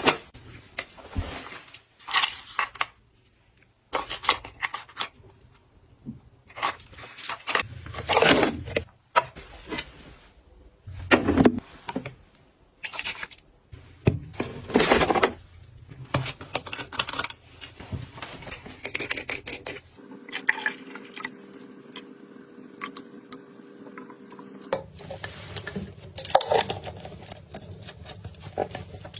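Containers and products being handled and set down: a series of separate clicks, knocks and light scrapes. A faint steady hum runs for a few seconds about two-thirds of the way through.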